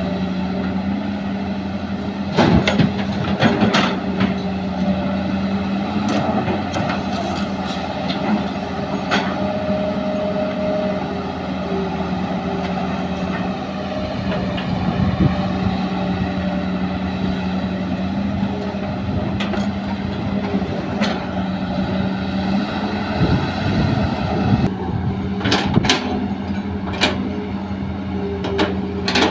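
Heavy-equipment diesel engines of an excavator and dump truck run steadily at a constant pitch while soil is loaded. Several clusters of sharp knocks and clatter break through the engine sound.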